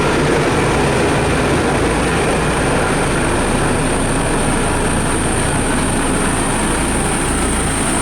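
Heavy diesel road-construction machinery running steadily: a motor grader or road roller at work, a constant engine rumble with a thin steady high whine above it.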